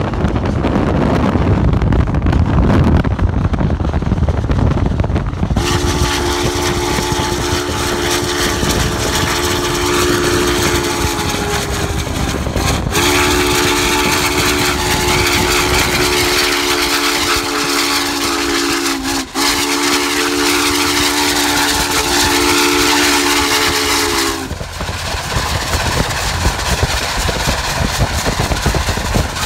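Union Pacific 844 steam locomotive's chime whistle blowing three long blasts of about six seconds each, several notes sounding together, each sagging slightly in pitch as it closes off. Before and after the whistle there is wind and road rumble from the pacing car.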